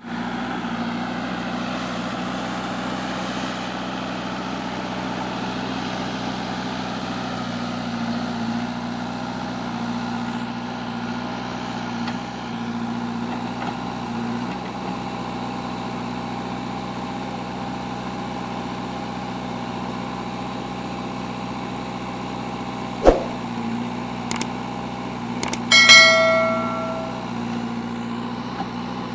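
Old Kirloskar-engined JCB backhoe loader's diesel engine running steadily. Near the end there is a sharp knock, then a ringing metallic clang.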